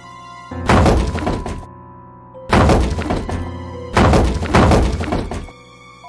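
Cartoon background music with three loud, noisy crash-like sound effects, each lasting about a second; the first comes about half a second in and the other two follow one after another from about two and a half seconds in.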